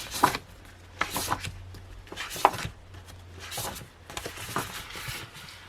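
Planner kit items and packaging being handled and put down on a tabletop: a series of irregular sharp taps and knocks, with rustling of paper and plastic between them.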